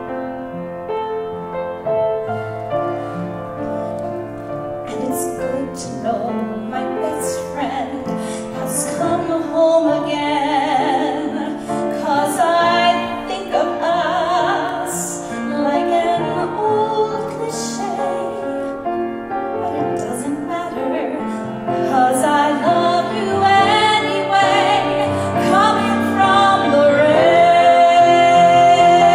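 A woman singing a slow ballad with vibrato into a microphone, accompanied by grand piano. The piano plays alone at first, the voice comes in about five seconds in, and she holds a long note near the end.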